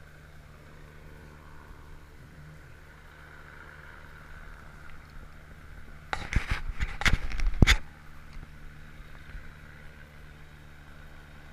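Boat's engine running steadily while under way through pack ice. About six seconds in comes a loud clatter of knocks and scraping lasting about two seconds, as ice fragments strike the hull.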